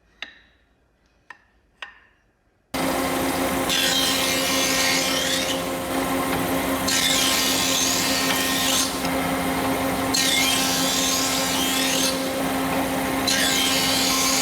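A few sharp wooden taps, then a power tool starts up about three seconds in and runs with a steady motor hum, a harsher cutting or sanding noise coming and going in regular passes about every three seconds as it works the wood.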